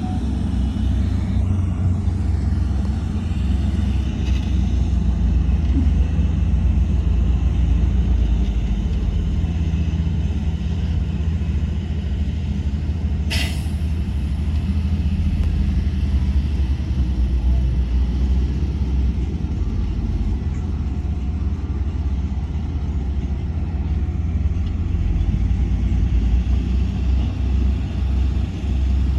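Heavy diesel earthmoving machinery running steadily with a deep engine rumble. A single short, sharp sound cuts through about 13 seconds in.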